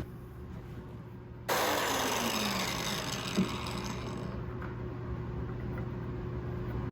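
Workshop machinery noise: a steady low hum, then a loud hiss starts suddenly about one and a half seconds in and keeps going, with a falling tone under it and a single sharp knock a couple of seconds later.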